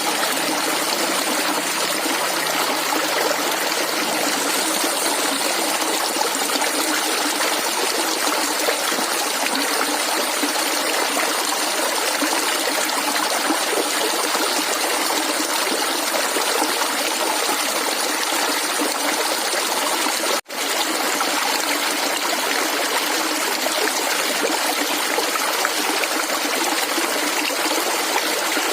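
Shallow running water gurgling and trickling steadily. The sound cuts out for a split second about twenty seconds in.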